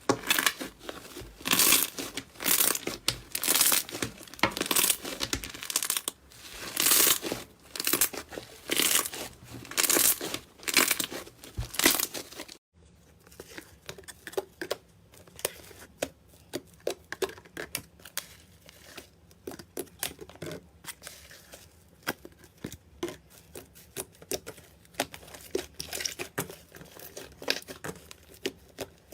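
Slime being worked by hand, making crackling, tearing squishes about one or two a second. About halfway through, a cut changes it to quieter, rapid small clicks and pops.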